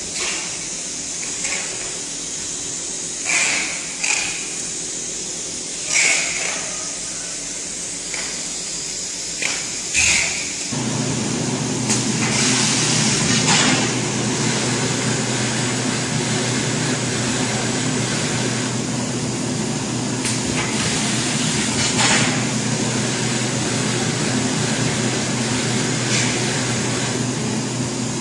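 EPE foam laminating and cutting machinery running with a steady hiss and a few short squeaks and clicks. About ten seconds in, a motor starts with a low, steady hum that carries on, with occasional sharp clicks over it.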